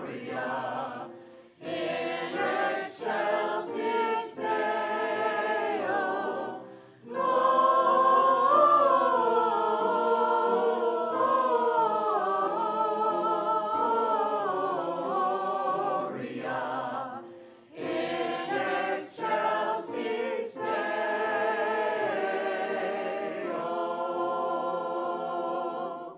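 Church choir of men and women singing in parts, in phrases broken by short pauses. The song ends on a held chord that cuts off at the very end.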